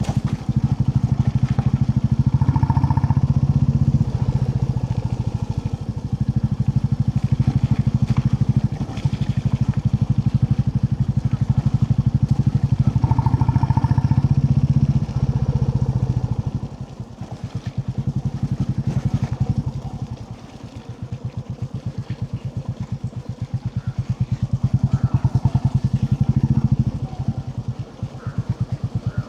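Royal Enfield Classic 350's single-cylinder engine running under way, its exhaust beating in a steady fast pulse. The engine eases off a little past halfway and picks up again near the end.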